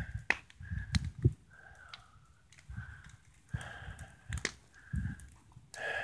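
Campfire of branches crackling, with sharp scattered pops and short patches of hiss, and a few brief low rumbles in between.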